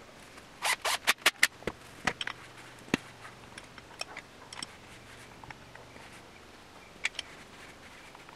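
Sharp metallic clicks and clanks from a wrench on the crankshaft of a VW/Audi 1.8T short block on an engine stand as the engine is turned over by hand, with a quick run of clicks about a second in and scattered single knocks after that.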